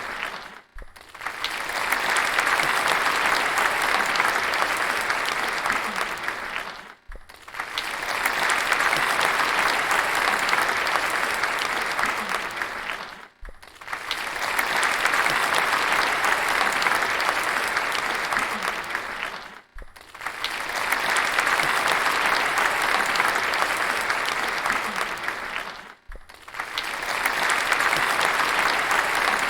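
Audience applause, many hands clapping densely. It fades out and starts up again about every six seconds as the same stretch repeats, five times in all.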